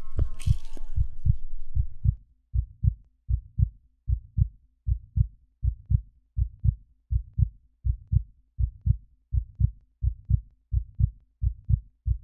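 Heartbeat sound effect: a steady double-thump beat, low and regular, a little faster than one beat a second. A brighter sound underneath fades out about two seconds in, leaving the heartbeat alone.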